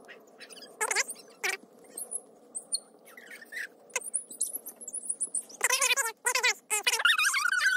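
Children squealing and shrieking in short, very high-pitched cries while they run about. The cries come singly at first, then come thick and loud over the last two seconds or so.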